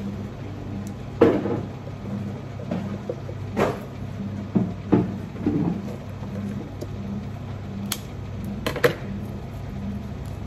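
Handling noises while arranging flower stems on a worktable: a series of knocks and clacks, the loudest about a second in, over a steady low hum.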